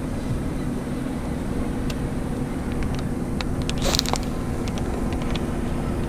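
Boat motor running with a steady hum, with scattered light clicks and a short rattle about four seconds in.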